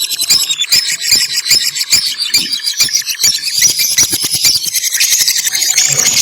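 Lovebirds chirping and squealing without a break, a dense chatter of many sharp, high calls.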